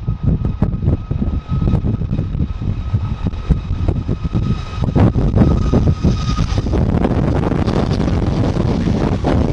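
Boeing 737 jet engines running with a steady high whine, heard through heavy wind buffeting on the microphone. The whine fades out about two-thirds of the way through, and a broader rushing noise takes over.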